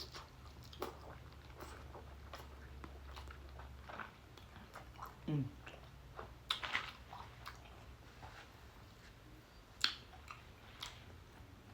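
A person eating seafood: wet chewing with scattered lip smacks and sharp clicks, the sharpest about ten seconds in.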